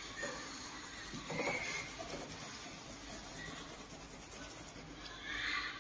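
Faint scratching of colouring strokes on paper, with a run of quick, even strokes from about a second and a half in until near the end.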